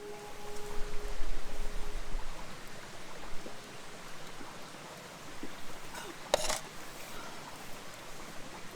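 Steady outdoor hiss, with a low rumble of wind on the microphone in the first couple of seconds and one short sharp crackle about six and a half seconds in.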